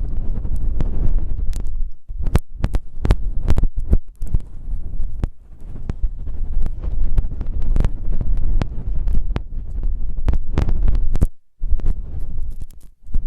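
Close-up rubbing and scratching directly on a microphone: a muffled, deep, uneven rumble with many sharp crackles and pops, cutting out briefly twice.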